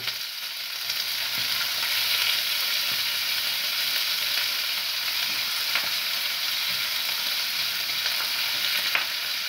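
Pieces of liver sizzling steadily in a hot frying pan, with a couple of faint clicks.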